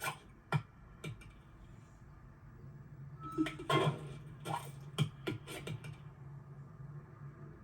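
Scattered sharp clicks and knocks over a steady low hum: a few single ones in the first second, then a quicker cluster from about three to six seconds in.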